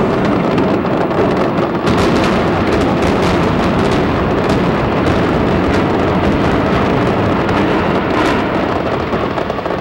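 Building implosion of a large concrete domed arena: sharp cracks from the demolition charges scattered over a loud, steady rumble as the structure collapses.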